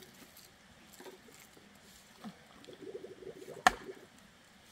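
A single sharp blow of a long-handled digging tool striking earth and stone about three and a half seconds in, after a faint rapid rattling.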